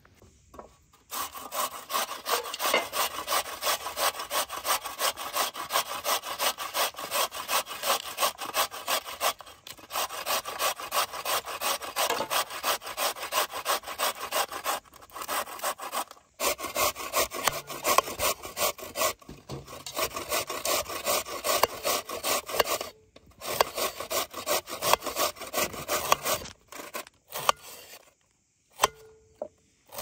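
Carrot grated on a metal box grater resting on a wooden board: quick rasping strokes, about three or four a second. They start about a second in, pause briefly a few times, and stop a few seconds before the end.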